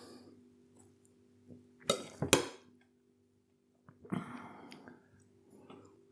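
Knife and fork clinking sharply against a plate twice, about two seconds in, then quieter eating noises, over a faint steady hum.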